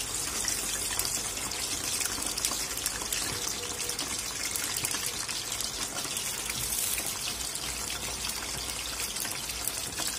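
Freshly added potato sticks, still wet from soaking, frying in a pan of hot cooking oil: a steady sizzle full of fine crackles.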